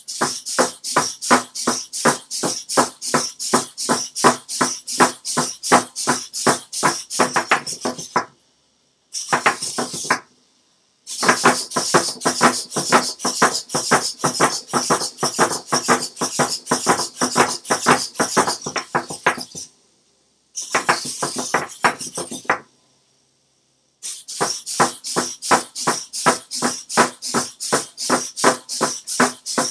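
Hexapod robot's hobby servos buzzing and its jointed legs clattering in a fast, even rhythm of about four or five pulses a second as it walks. The rhythm stops dead and starts again several times.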